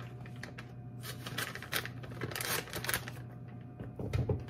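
Irregular rustling and light clicking as cheese is added to a bowl of buffalo chicken mixture, with a dull thump near the end and a steady low hum underneath.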